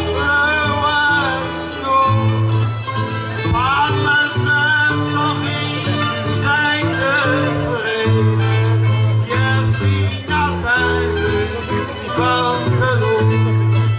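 Instrumental interlude of plucked guitars: a classical guitar and round-bodied Portuguese-style guitars strumming and picking a folk accompaniment over held bass notes, between the sung verses of an Azorean cantoria ao desafio.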